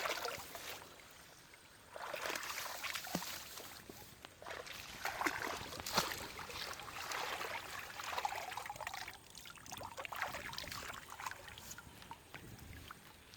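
Shallow water splashing and sloshing in irregular bursts, with a few sharp knocks.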